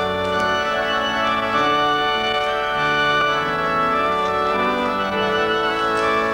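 Organ playing slow processional music in held chords, the notes shifting every half second or so at an even volume.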